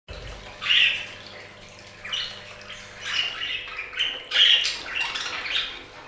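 Budgerigars chirping and squawking in a string of short, high calls about a second apart, over water running from a small bird-bath fountain.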